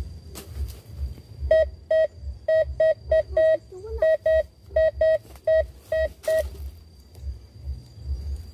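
Metal detector beeping in quick, uneven succession: over a dozen short beeps, all at the same pitch, from about a second and a half in to about six and a half seconds, signalling metal in the ground beneath the coil.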